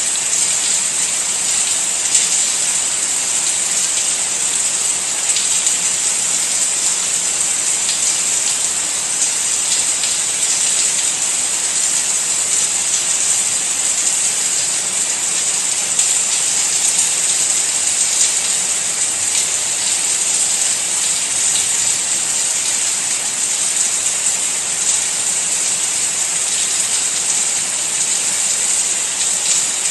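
Steady rain falling: an even hiss, brightest in the high range, with faint ticks of individual drops.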